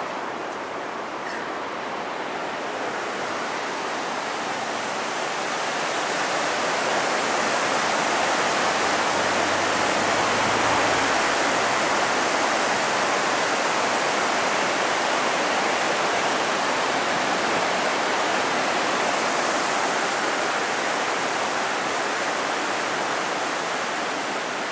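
Rushing white water of river rapids: a steady, even rush that grows louder toward the middle and eases a little near the end.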